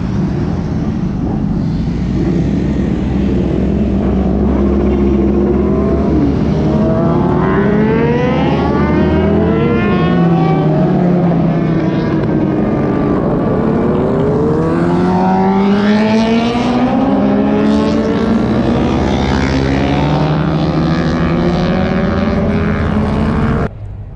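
Several motorcycle engines running and revving together, their overlapping pitches repeatedly rising under acceleration and dropping through gear changes over a steady low rumble; the sound cuts off abruptly near the end.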